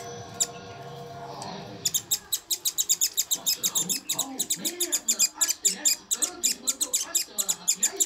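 Baby Indian silverbill begging: a fast, regular run of short high chirps, about seven a second, starting about two seconds in.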